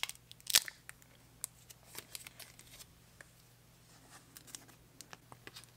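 Fingernails picking and tapping at the stuck-on pull tab of a cardboard Apple Pencil box: scattered faint clicks and scrapes, with two sharper clicks near the start.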